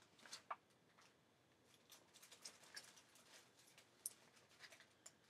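Near silence with faint, irregular light ticks and rustles of paper and cardstock being handled, a few slightly sharper clicks near the start and one about four seconds in.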